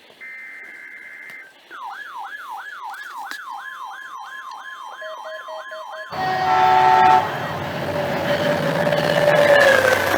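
Emergency alert audio: a burst of SAME header data, heard as a buzzy digital warble, then an electronic siren sweeping up and down about three times a second. About six seconds in, the siren cuts off abruptly into a louder noisy rush with steady tones.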